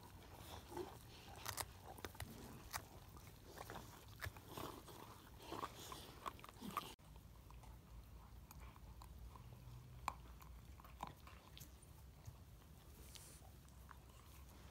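Livestock guardian dog puppies gnawing on bones: quiet, irregular clicks and cracks of teeth on bone, coming thickly for the first half and more sparsely after that.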